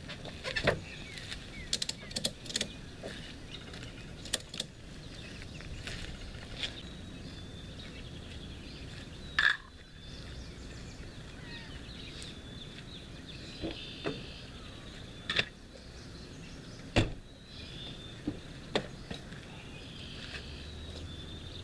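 Outdoor ambience with birds chirping, broken by clicks and knocks: a cluster in the first few seconds as a tie-down strap and canoe-loading gear are handled, then a handful of single sharp knocks, the loudest about 17 seconds in.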